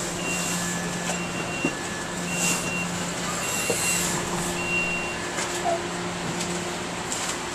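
Two-tone door chime of an MBTA Green Line trolley car, a higher and a lower beep alternating about once a second and stopping about five and a half seconds in, as the doors work at a station stop. Under it runs the car's steady hum.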